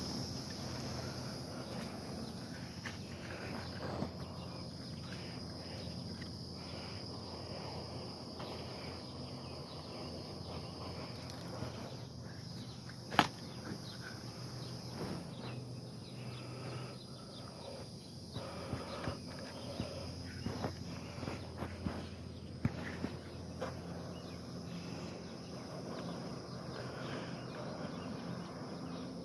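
Steady high insect chirring with a low hum underneath, broken by scattered light clicks and crackles; one sharp click about thirteen seconds in.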